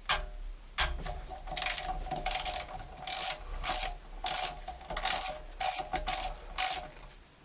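Hand ratchet with a T30 Torx socket undoing the oil pan bolts of a Mercedes 722.6 automatic transmission. Each back-swing gives a short run of pawl clicks, about a dozen strokes a little under two a second, which stop shortly before the end.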